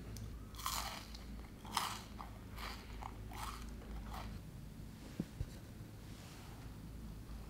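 Someone biting and chewing dragon's beard candy, the fine spun-sugar threads and peanut filling crunching in about six short bursts over the first four seconds. Two soft knocks follow a little after five seconds.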